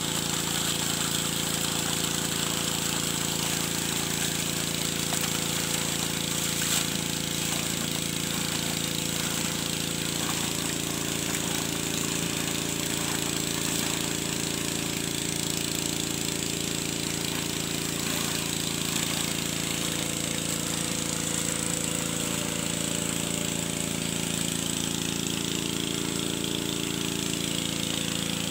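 Small engine-driven water pump running steadily at a constant speed, forcing water down the drill pipe to wash-bore a well.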